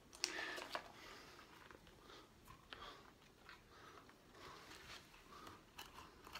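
Handling noise from a black diving mask and its strap being turned and flexed in the hands: faint scattered clicks and rustles, loudest in a short cluster within the first second.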